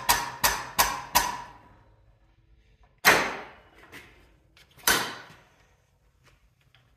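Air-over-hydraulic pump pulsing in quick strokes that slow and stop about a second in, pressurising a hydraulic ram on a tube-flaring mandrel. Then two short, sharp bursts of noise about two seconds apart, each fading within a second.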